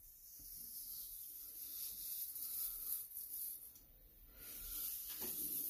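Leaf razor with Personna Platinum blades rasping through lather and stubble on a shaved scalp, quiet scraping strokes against the grain, with a brief pause about four seconds in.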